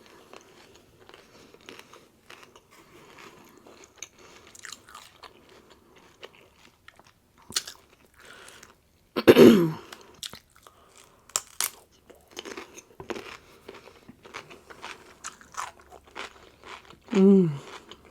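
Crunching and chewing of crisp food close to the microphone, in many short crackles. About halfway through and again near the end comes a short hum from the eater that falls in pitch.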